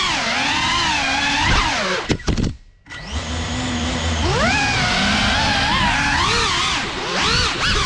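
FPV quadcopter's brushless motors and propellers whining, the pitch rising and falling with throttle. About two seconds in there are a few sharp clicks, then the whine drops away almost to nothing for half a second before the motors spin back up.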